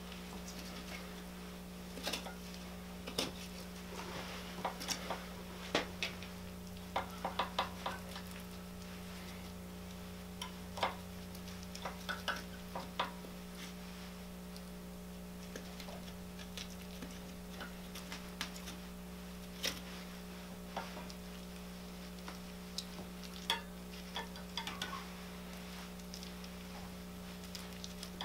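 A knife cutting the loin away from the spine of a hanging, skinned white-tailed deer carcass, with hands pulling at the meat: scattered small clicks and ticks, thickest in the first half, over a steady low hum.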